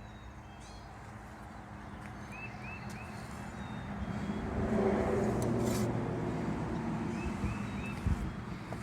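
An engine running with a steady hum that grows louder to its peak about five seconds in, then eases off a little. A short high chirp sounds three times, twice, and there is a low thump near the end.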